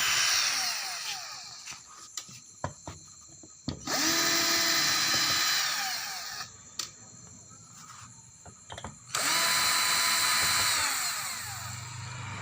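Electric screwdriver backing screws out of a metal amplifier case. It runs in three spells, one ending about a second in, another starting about 4 s in and another about 9 s in, each with its whine falling as the motor winds down. Small clicks come between the runs.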